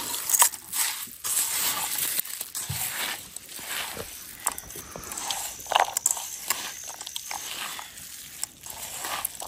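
Chatpate (puffed-rice snack) being mixed by hand in a bowl: dry crunchy rustling with scattered small clicks.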